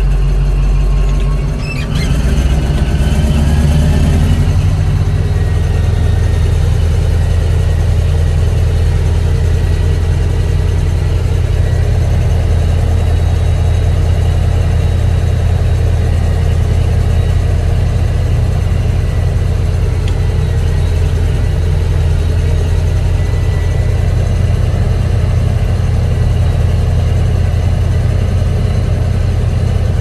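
Caterpillar D11 bulldozer's diesel engine heard from inside the cab, running loud and steady as the dozer drives. About two seconds in it dips and then rises in pitch over a couple of seconds before settling, with a faint steady high whine over the engine.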